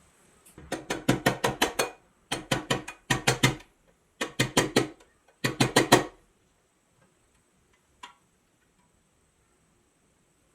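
Rapid sharp tapping, several strikes a second, in four bursts of about a second and a half each, then one lone tap about eight seconds in.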